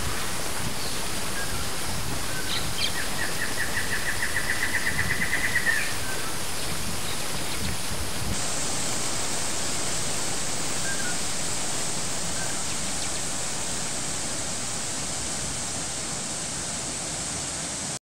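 Waterfall rushing steadily over rocks. A bird sings a quick trill of repeated notes from about three to six seconds in, growing louder. The rush changes tone about eight seconds in and fades out near the end.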